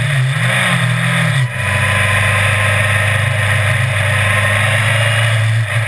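Autocross race car engine heard on board, revving up and back down once in the first second or so, then running at a steady pitch, with a constant hiss over it.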